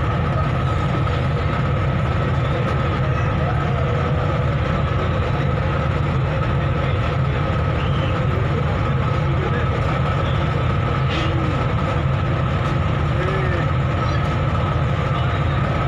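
Ferry engine running with a steady low drone and a constant high whine above it.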